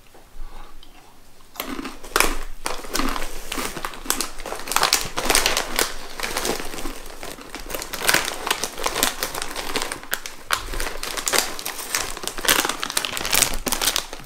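Plastic snack bag crinkling and crackling as it is handled and turned over, starting about a second and a half in and going on in dense bursts.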